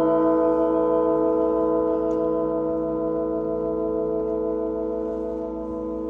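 A set of flat metal plate bells, tuned to an ancient Greek mode, ringing on after being struck: several tones sound together and slowly fade.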